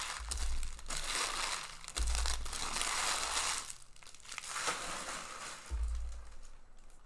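Card packaging crumpled and rustled by hand in long noisy stretches, with dull bumps of handling underneath.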